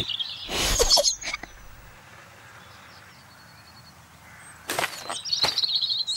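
Cartoon sound effects as a cardboard cake box falls open. There is a brief noisy burst about half a second in, then two sharp cracks near the end as the sides fall away, followed by a wavering, high whistle-like tone.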